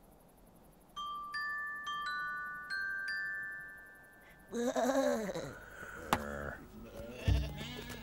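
A few soft glockenspiel-like chime notes ring out one after another, then a sheep bleats loudly about halfway through. A low musical note sounds near the end.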